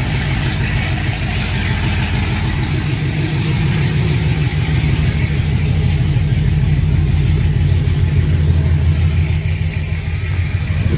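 Chevrolet Trailblazer SS's 6.0 L LS2 V8 idling steadily and loud, its exhaust open at the newly fitted headers because the Y-pipe is not yet on.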